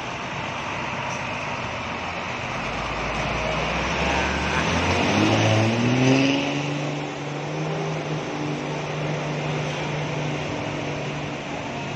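Intercity bus diesel engine pulling away: it revs up with a rising pitch as the bus passes, loudest about six seconds in, then settles into a steady drone as it drives off. A constant hiss of heavy rain and wet road runs under it.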